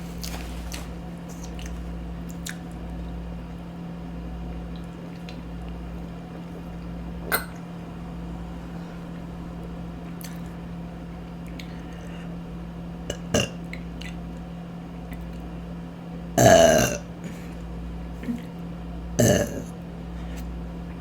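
A woman burping loudly twice near the end, about three seconds apart; the first burp is longer, close to a second. Two short sharp clicks come earlier, over a steady low hum.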